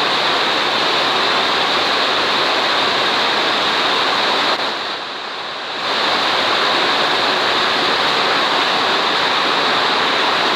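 Heavy rain pouring down in a steady hiss, briefly quieter for about a second roughly five seconds in.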